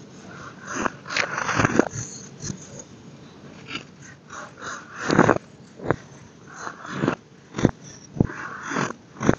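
Hands crushing molded baking soda lumps and squeezing the loose powder: a run of irregular soft crunches, with a few sharper cracks between about five and nine seconds in.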